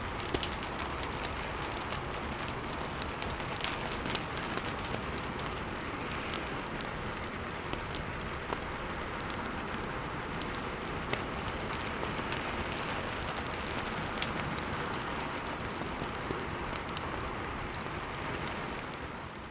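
Steady rain mixed with a crackling fireplace: an even hiss of rain over frequent small sharp pops and snaps from the fire.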